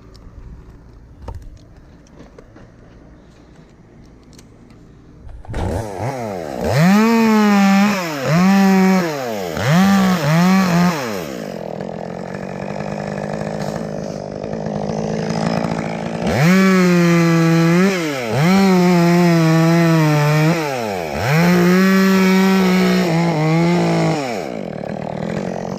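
Two-stroke chainsaw that comes in about five seconds in and is throttled up in repeated bursts, its pitch climbing and sagging with each one, dropping back to a lower steady run between them.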